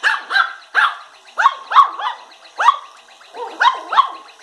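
Yorkshire terrier puppies play-barking, a quick series of short, high-pitched yaps with a brief pause about three seconds in.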